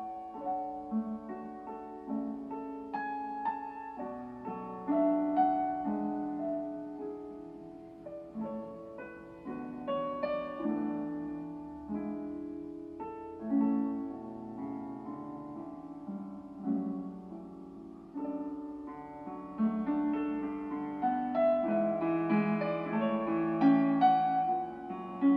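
Piano music, a gentle melody of struck notes that grows fuller and louder over the last several seconds.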